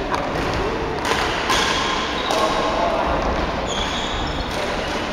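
Badminton rally in a large hall: several sharp racket hits on the shuttlecock and thuds of players' footsteps on the wooden court, with brief high squeaks of shoes on the floor a little after the middle.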